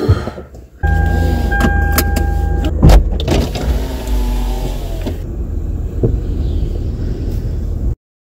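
Car noise inside the cabin: a loud, steady rumble and rush that comes on suddenly about a second in, with a steady tone over it for about two seconds, then cuts off abruptly near the end.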